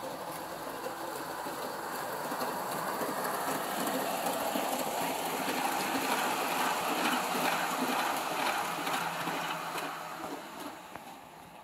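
LGB ICE garden-railway model train running with its onboard sound switched off, so only its mechanical running noise is heard: motors and wheels rattling on the track. It grows louder as the train passes close, about seven seconds in, then fades away.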